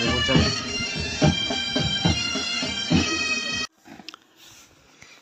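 Bagpipes playing a tune over their steady drone. The music cuts off suddenly about three and a half seconds in, leaving only faint scattered sounds.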